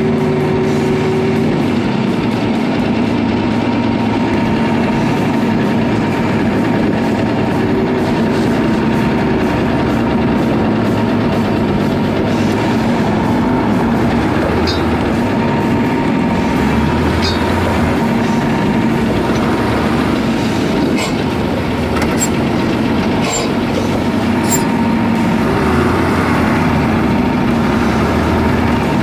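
Mercedes-Benz Unimog 1300 L truck driving, its diesel engine running steadily under the general rattle and noise of the vehicle, with a faint steady whine. A few sharp clicks and knocks come in the second half.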